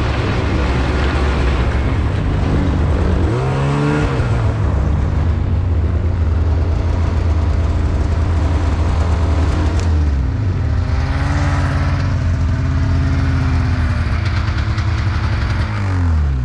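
Snowmobile engine running under way, with the rider's sled close to the microphone. Its pitch climbs as it speeds up about three and a half seconds in, eases off around ten seconds, and falls away near the end as the sled slows to a stop.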